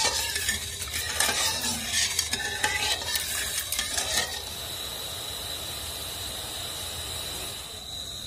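Metal spatula stirring sugar and water in an aluminium kadai, scraping and clinking against the pan to dissolve the sugar for syrup. The stirring stops about four seconds in, leaving a steady hiss and a thin high tone.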